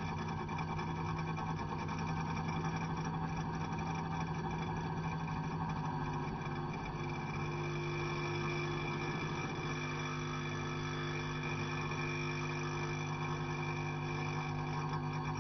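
Electric meter humming steadily: a constant low drone with a thin, steady high whine over it.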